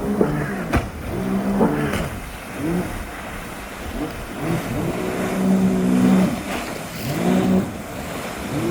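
Jet ski engine revving up and down over and over, its pitch rising and falling every second or so. A few sharp clicks come in the first two seconds.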